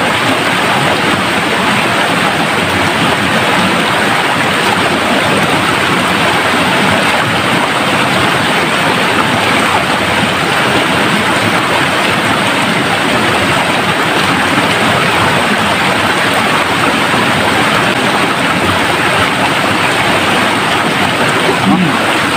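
Rocky forest stream rushing over boulders: a loud, steady, unbroken rush of water.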